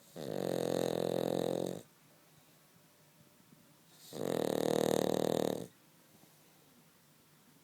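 Cavalier King Charles Spaniel snoring in its sleep: two long, buzzing snores about four seconds apart, each lasting about a second and a half, with quiet between them.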